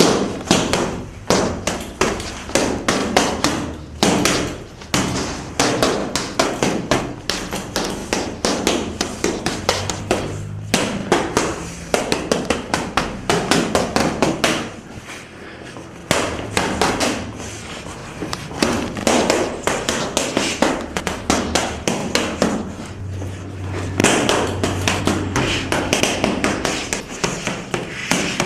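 Punches landing on boxing bags and pads in a rapid, continuous series of sharp thuds and slaps, several a second, with overlapping strikes.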